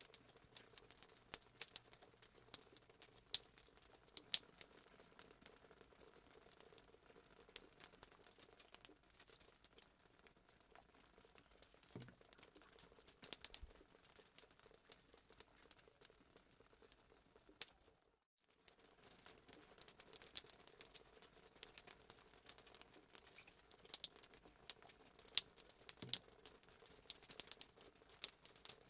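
Fireplace sound effect: a wood fire crackling, with many small irregular pops and snaps over a faint steady hum. The sound cuts out for a split second about 18 seconds in.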